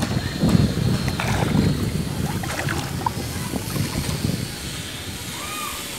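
Wind buffeting the phone's microphone in gusty low rumbles, easing off near the end.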